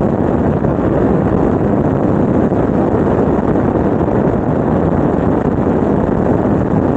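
Steady wind rush over the microphone of a Suzuki GSX-R750 sportbike riding at highway speed, with the motorcycle's engine and tyre noise blended underneath.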